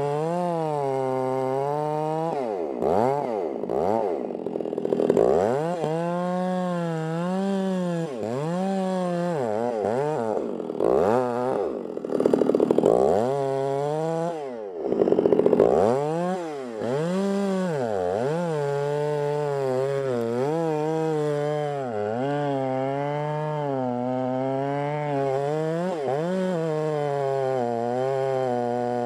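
Gas chainsaw cutting into the base of a rotten white fir trunk. Its engine speed repeatedly drops and climbs back with louder surges through the first half, then it runs more steadily in the cut.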